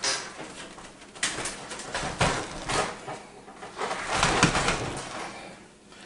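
Corsair 780T PC case being handled and turned around: a string of irregular scrapes, knocks and rubbing noises, loudest around the middle and near 4 to 5 seconds in.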